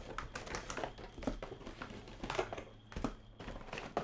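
A trading-card box and its plastic-wrapped packs being handled, opened and set down: irregular crinkling with light clicks and taps.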